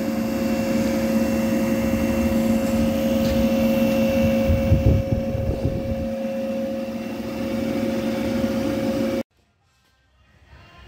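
40-horsepower DC motor running on its test supply, shunt fields at 300 volts: a steady hum with a higher whine over a rumble. The sound cuts off abruptly about nine seconds in.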